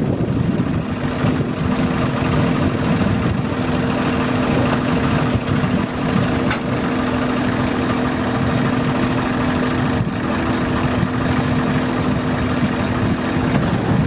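Punni Grain Cruiser combine harvester running steadily, its diesel engine and machinery making a steady hum that sets in about a second in. A single sharp click near the middle.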